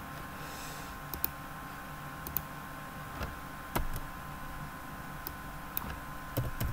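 Sparse single clicks from a computer keyboard and mouse, a few scattered about a second apart, over a low steady hum.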